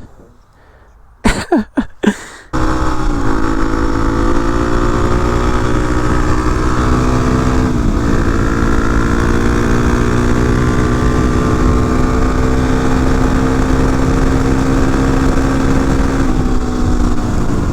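Dual-sport dirt bike engine running at steady revs while riding, heard close from the rider's helmet. It starts suddenly about two and a half seconds in after a few short sounds, dips briefly about 8 seconds in, and settles slightly lower near the end.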